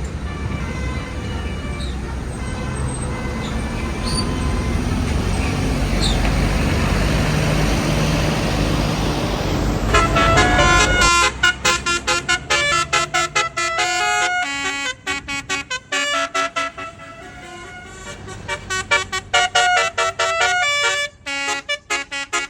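A tour bus's engine runs with a heavy low rumble. About ten seconds in, a basuri telolet horn starts playing a fast tune of short stepped notes in quick runs with brief gaps.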